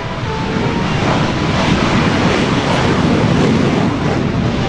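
Twin General Electric F404 jet engines of a CF-18 Hornet at full power with afterburners lit for takeoff: a loud, dense rushing jet noise that grows louder over the first couple of seconds and then holds.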